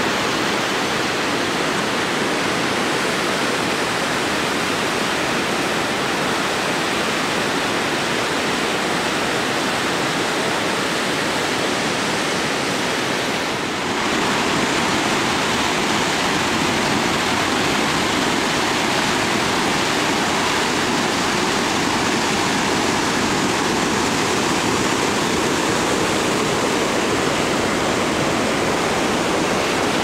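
Steady rushing roar of a waterfall and whitewater pouring through a narrow rock gorge. It gets slightly louder at a cut about 14 seconds in.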